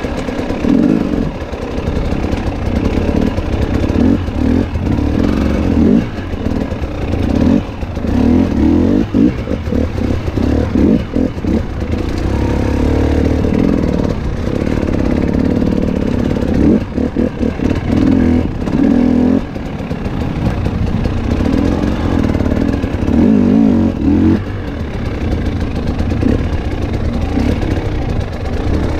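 KTM 300 XC-W two-stroke single-cylinder dirt bike engine revving hard and falling back over and over as it is ridden along a trail, the throttle chopped briefly every few seconds.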